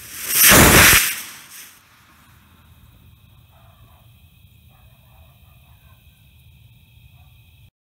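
Homemade rocket motor on a go-kart firing in a very loud rushing burst that lasts about a second and a half and pushes the kart forward, then dies away.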